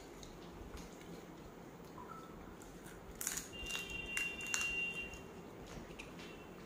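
Crab shell being cracked and crunched while eating, with a cluster of sharp cracks about three to five seconds in.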